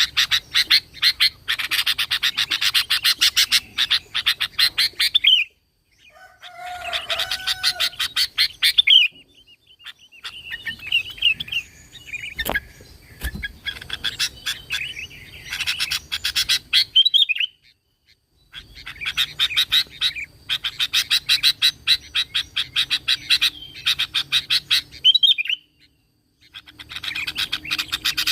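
Sooty-headed bulbul (kutilang) singing in bouts of rapid, fast-repeated notes a few seconds long, broken by short pauses, about five bouts in all.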